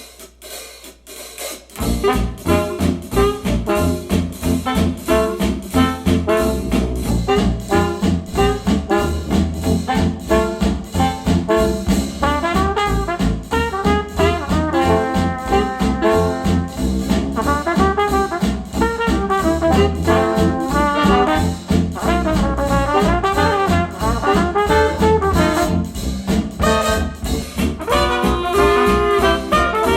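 Retro acoustic jazz track with trumpet and trombone over a steady beat, played back through KEF Q350 bookshelf speakers. The music starts about two seconds in, after a short quiet gap.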